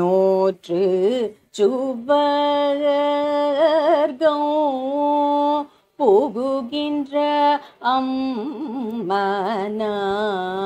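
A solo voice singing unaccompanied Carnatic music in raga Todi, holding and bending notes with heavily oscillating gamaka ornaments, in phrases separated by short breaths.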